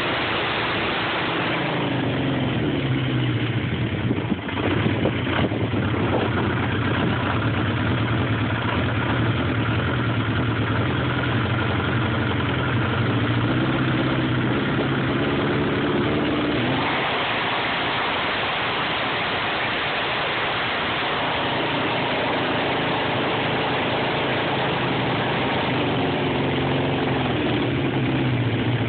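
Engine idling roughly, a steady low hum whose upper tones waver. There is a single sharp knock about four seconds in.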